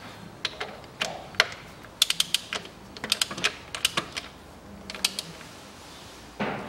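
Socket ratchet wrench clicking in several quick runs of ratchet strokes as a plug on the transfer case is turned.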